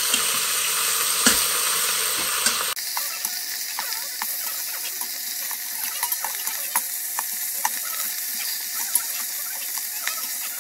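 Beef short ribs sizzling in hot oil in the steel inner pot of a Mealthy multi-pot on high sauté, with metal tongs clicking against the pot and meat as the pieces are turned. The sizzle drops suddenly about three seconds in, and the clicks come thick after that.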